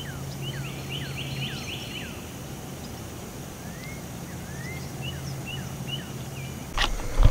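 Birds calling outdoors in a series of short whistled notes, some swooping down, some rising, clustered in quick runs, over a steady low hum. Near the end a loud low rumble with a few knocks cuts in.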